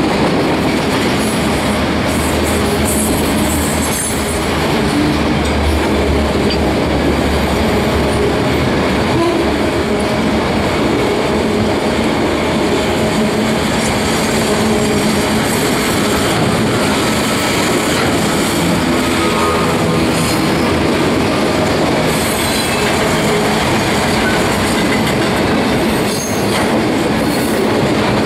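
Loaded autorack freight cars rolling past close by: a steady, loud rumble of steel wheels on the rails. A faint, thin wheel squeal comes in briefly a little past the middle.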